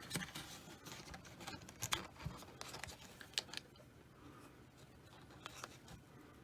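Faint, scattered clicks and light taps of small magnets and parts being handled, a handful in the first few seconds and fewer toward the end.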